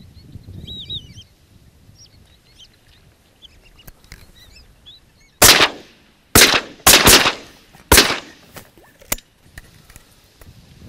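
A few high whistled bird calls, then a volley of shotgun fire at a passing flock of ducks about halfway through: five loud shots within about two and a half seconds, then two fainter ones.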